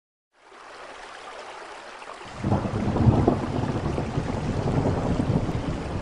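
Steady rain fades in, and about two seconds in a low rumble of thunder rolls in and keeps rumbling under the rain.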